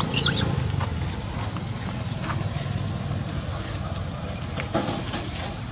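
A baby long-tailed macaque gives one brief high-pitched squeal right at the start, followed by a few faint short calls, over a steady low hum.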